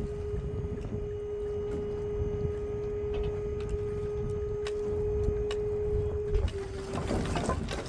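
Dump trailer's hydraulic pump running with a steady whine as the bed of stacked maple firewood is raised, with scattered knocks of wood shifting. Near the end the whine stops and a louder clatter of firewood starting to slide builds.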